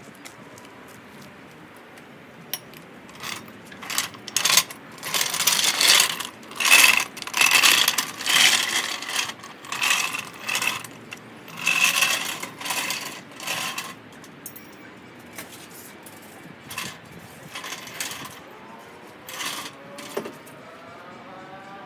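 Metal tools and car hardware clinking and clanking as they are handled, with a busy run of ringing metallic clanks from about four seconds to fourteen seconds in, then a few scattered clicks.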